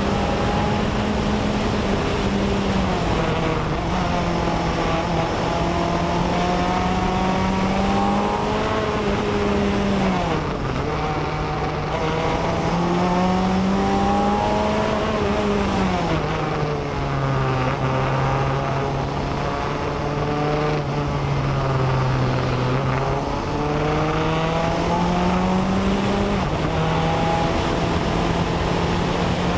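BAC Mono single-seater's four-cylinder engine at speed on track: its note climbs steadily under acceleration, drops sharply at the gear changes and falls away more slowly when the car slows for corners.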